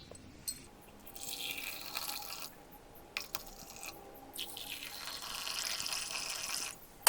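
Hot kadha, a spiced herbal decoction, poured into two glasses one after the other in two splashing pours of about two seconds each, followed by a sharp clink near the end.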